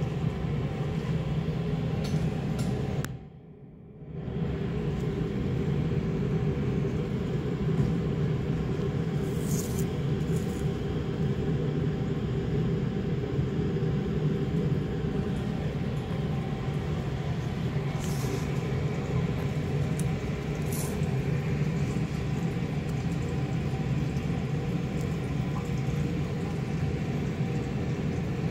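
Steady low hum with several steady tones, like room ventilation or machinery. It drops out briefly about three seconds in, and a few faint clicks come later.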